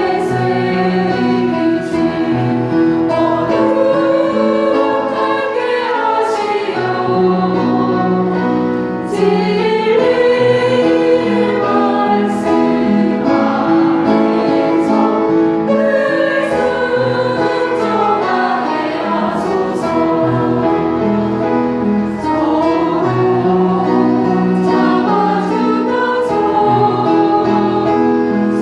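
Church choir singing a Korean hymn, the voices moving together from note to note over sustained accompanying notes.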